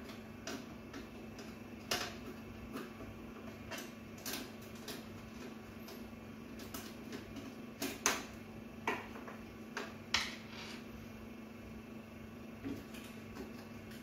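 Screwdriver and small metal parts clicking and tapping inside an opened microwave oven's metal chassis while its grounding screw is unscrewed. Scattered sharp clicks come at irregular intervals over a steady low hum.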